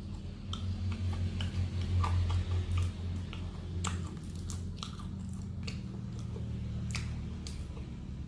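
Close-miked chewing and biting of crispy fried chicken and rice, with irregular wet crunches and clicks from the mouth over a low steady hum.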